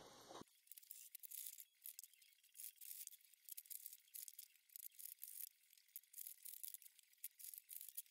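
Near silence: a faint high hiss with scattered faint ticks.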